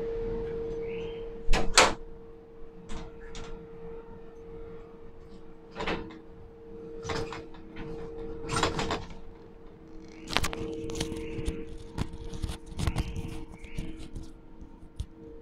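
Steady industrial machinery hum with two held tones, broken by irregular sharp clunks and knocks, the loudest a pair about a second and a half in. It is heard from inside an overhead crane cab over a steel-mill ladle.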